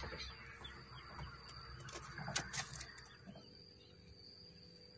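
Faint birdsong, a few small chirps over a steady high thin tone, with a brief cluster of sharp clicks about two and a half seconds in.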